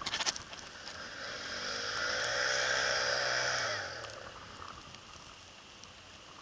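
An ATV engine passing by at speed, out of sight: it swells over about two seconds, holds loud briefly, then fades away after about four seconds, its pitch dropping as it goes. A few short knocks come right at the start.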